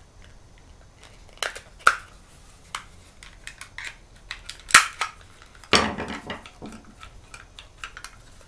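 Plastic clicks and snaps from a Gilmour Swivel Connect trigger hose nozzle as its handle is fitted back on with the trigger lock removed. Light tapping and scraping of a small tool comes between the clicks, with the sharpest snap almost five seconds in and a rougher scrape around six seconds.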